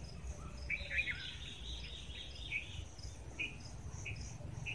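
Outdoor ambience of birds and insects: short high chirps repeat at an even rhythm throughout, with a busier run of bird chirping and quick warbles from just under a second in to nearly three seconds, over a low steady rumble.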